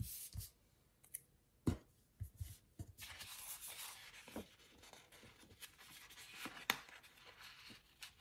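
Paper pages of a disc-bound planner rustling and sliding under hands, with a few light clicks and taps, then a steady rubbing rustle as a sticker is pressed down onto the page.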